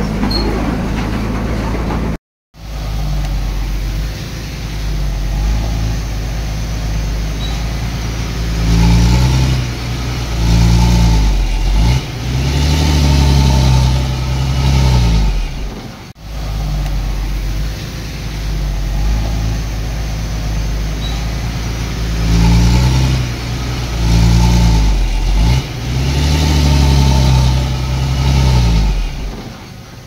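Heavy-equipment diesel engine running and revving up and down in repeated surges. The sound cuts out briefly a couple of seconds in and dips again about halfway through.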